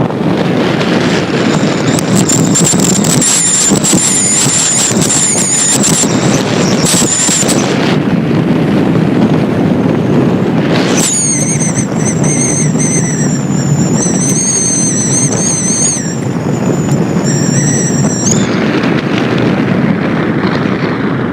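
Strong wind roaring and buffeting the microphone in a sandstorm, with a high, wavering whistle that comes in twice, for several seconds each time.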